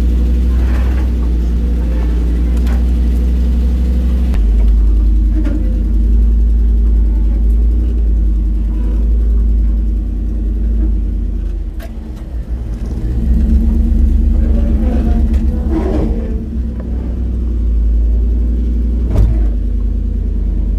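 Jeep Wrangler YJ engine running as the 4x4 drives along a snowy off-road trail, heard from the passenger seat: a steady low rumble whose note shifts a few times with the throttle. Two sharp knocks come through, one about halfway through and one near the end.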